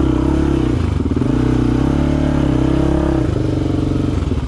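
Enduro dirt bike engine revving up and down while riding over rocky ground, then dropping to low, chugging revs about three seconds in.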